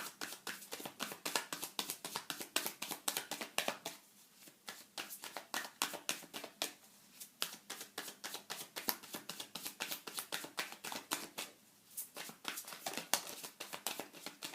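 Tarot cards being shuffled by hand: a dense run of quick papery card flicks and taps, pausing briefly about four seconds in and again near twelve seconds.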